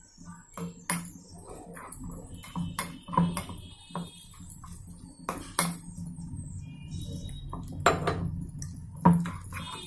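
Metal spoon stirring thick gram-flour batter in a glass bowl, knocking and scraping against the glass at an irregular pace, with the sharpest knocks near the end.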